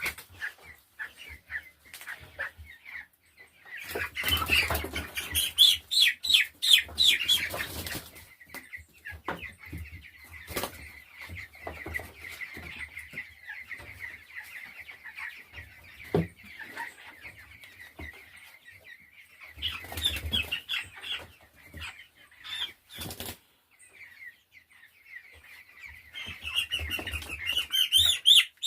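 A flock of three-week-old chicks peeping together, with flurries of wing flapping and louder cheeping about four seconds in, around twenty seconds and near the end.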